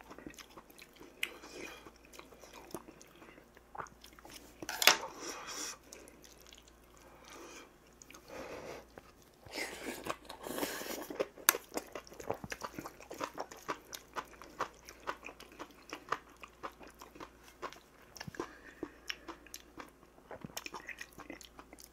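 Close-up chewing and mouth sounds of a person eating spoonfuls of rice and side dishes, with many short wet clicks and crunchy bites. Louder stretches come about five seconds in and again around ten seconds.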